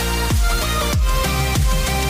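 Electronic dance music with a steady thumping kick drum, roughly a beat every 0.6 seconds, over sustained synth notes.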